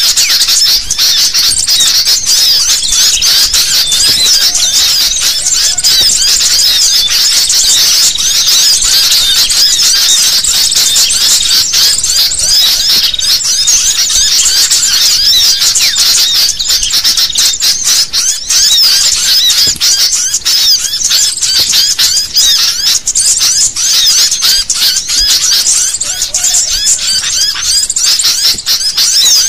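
A noisy flock of sooty-headed bulbuls chattering and chirping all at once in a dense, unbroken, high-pitched chorus, played as a bird-trapping lure call.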